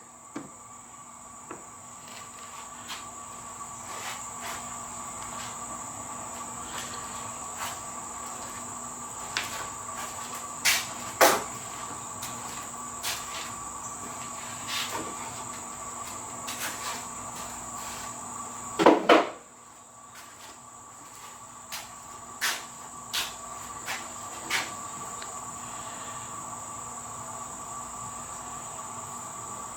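Scattered light clicks and knocks of chainsaw chains and bars being handled, with louder knocks about 11 seconds and 19 seconds in, over a steady high-pitched hum.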